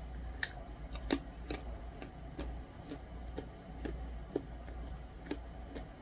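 A raw carrot stick being bitten and chewed, a crisp crunch about twice a second.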